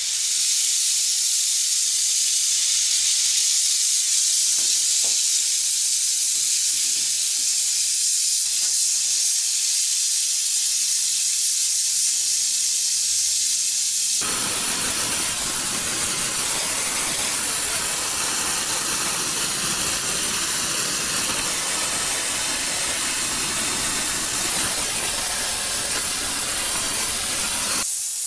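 Gas brazing torch flame hissing steadily while heating a steel joint up to temperature for silver soldering. About halfway through, the hiss abruptly becomes a fuller, rougher rush with more low rumble in it.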